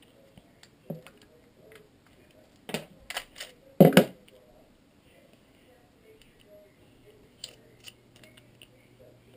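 Sharp clicks and clacks of a Hi-Capa pistol's parts being handled as it is taken apart, with a loud double clack about four seconds in and a few lighter ticks near the end.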